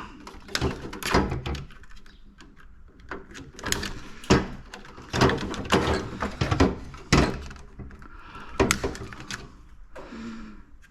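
Irregular knocks, clicks and clatter from hands and tools working on a disassembled air filter unit, pulling wires out of its housing.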